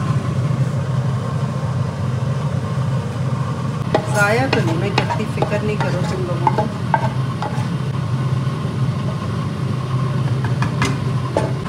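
A spoon scraping and knocking against an aluminium pot as boiled rice is tipped and scraped out onto curry in another pot, with a cluster of clicks and clatter about four to seven seconds in and a few sharp knocks near the end. A steady low mechanical hum runs underneath.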